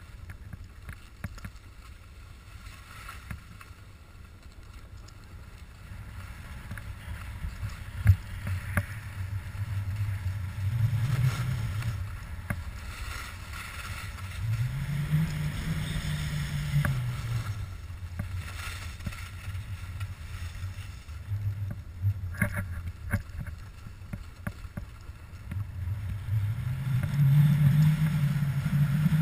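Wind buffeting a moving microphone during a downhill snow run, with a low rumble that swells three times as speed picks up, and a fainter hiss of edges sliding on snow.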